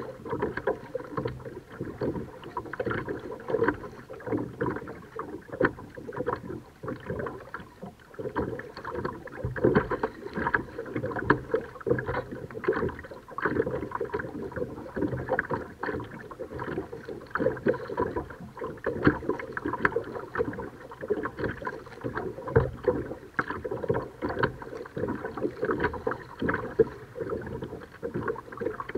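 Kayak on the water: paddle splashing and water lapping against the hull, in an uneven run of small splashes and drips.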